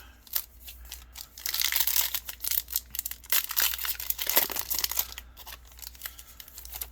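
Yu-Gi-Oh booster pack's foil wrapper being torn open and crinkled: a dense crackling rustle full of sharp clicks lasting about four seconds, starting over a second in.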